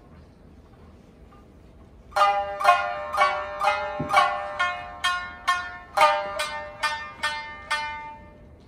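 Shamisen played with a bachi plectrum: after about two seconds of quiet, a run of single plucked notes, roughly two a second, each ringing and dying away. One note about four seconds in has a low thud under it.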